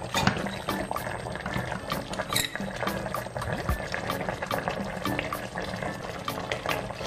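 Tomato sauce bubbling and popping around stuffed cabbage rolls simmering in a stainless steel pot, with background music playing.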